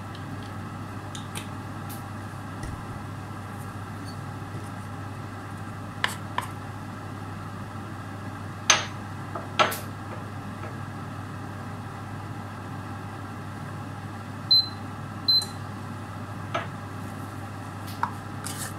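Steady electrical hum of an induction hob heating oil in a wok, with a few scattered clicks and knocks of a utensil against the pan. Two short high beeps about a second apart come from the hob's touch controls.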